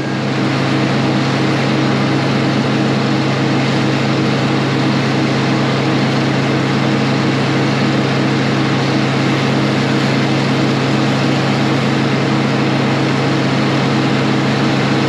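Heavy farm vehicle's diesel engine running at a steady speed, a constant low hum over a wide rushing noise, with no revving or changes.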